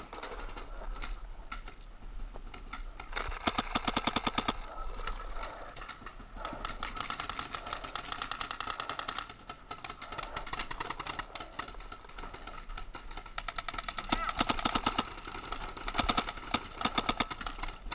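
Paintball markers firing in rapid strings of shots, roughly a dozen pops a second, in several bursts: one about three seconds in and more near the end.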